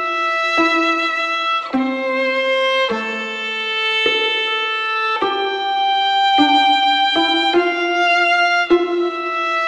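Background instrumental music: a slow melody of held notes, changing about once a second.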